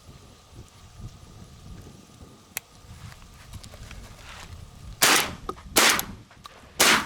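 Three shotgun shots at doves, fired in quick succession less than a second apart, near the end.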